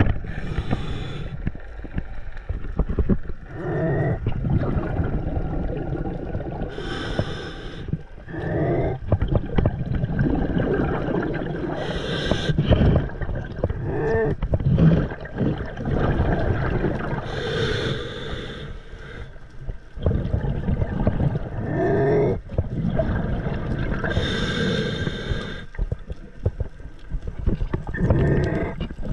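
Muffled underwater noise picked up by a diver's camera as he swims with a speargun. A bubbly hiss comes every five or six seconds, and a few short rising groans come between them.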